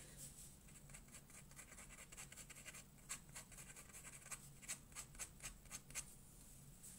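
Faint scratching of a black ink pen nib on watercolour paper, making quick short strokes for shadowy foliage, about three a second from roughly halfway through.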